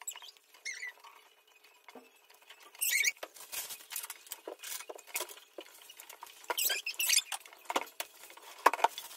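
Fresh spinach being picked over by hand: a quick, irregular run of small crisp snaps as stems are broken off, leaf rustles, and light taps on a plastic colander. Brief high squeaks of leaves rubbed between fingers come about three seconds in and again around seven seconds.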